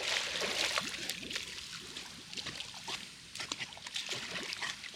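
Pool water splashing and lapping as a man and a dog paddle in it, with many small, quick splashes.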